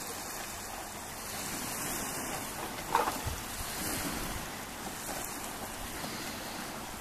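Breeze buffeting the microphone over small, choppy lake waves lapping, a steady rushing noise. A brief, sharper sound stands out about three seconds in.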